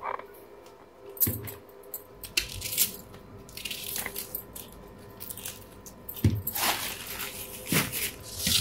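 Onion being cut with a knife on a chopping board: a few irregular knocks of the blade on the board and crisp crackling slicing sounds.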